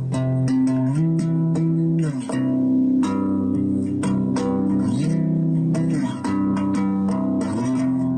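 Background music: guitar-led track with a bass line that slides between notes and a steady drum beat.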